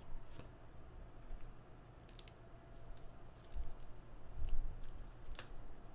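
Trading cards and their packaging being handled and set down on a table: a few scattered light clicks and taps, the sharpest near the end.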